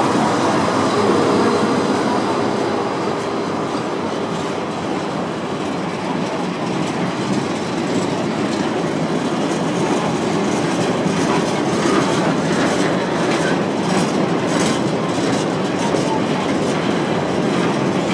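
Colas Rail Class 70 diesel freight locomotive passing close by, its engine hum fading over the first few seconds. A long train of loaded bogie tank wagons then rolls past with a steady wheel rumble and repeated clickety-clack of wheels over the track.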